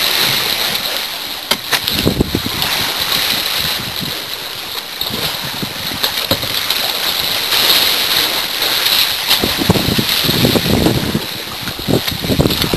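Choppy sea waves sloshing and splashing against the concrete ship hulls and around a kayak, in irregular surges that are heaviest in the last few seconds, over a steady hiss of wind.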